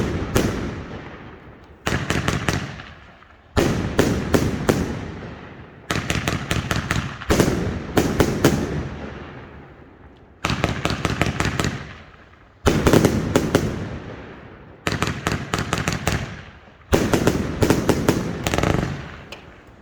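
A firework cake firing volleys of aerial shots: about nine salvos, roughly two seconds apart. Each salvo is a quick cluster of loud bangs that dies away before the next.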